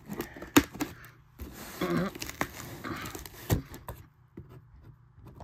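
Scissors cutting into packing tape and cardboard on a small box: a few sharp snips with scraping in between.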